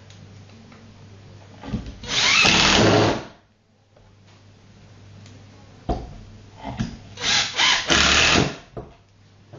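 Power drill driving screws through a climbing hold into plywood, in two runs of about a second and a half each, with a clack between them.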